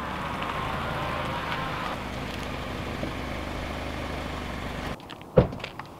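Compact SUV rolling slowly into a campsite, its engine and tyres running steadily and loudest as it passes close about a second in. The engine cuts off suddenly about five seconds in, followed half a second later by a single sharp thump.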